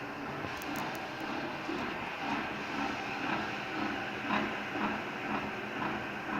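A horizontal milling machine running, its arbor-mounted cutter milling a groove in a metal workpiece. It gives a steady machine noise with a regular pulse of about two beats a second, and three short ticks come about a second in.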